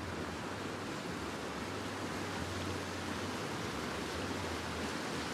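Steady rushing of a river flowing over its bed, an even hiss of moving water with no breaks.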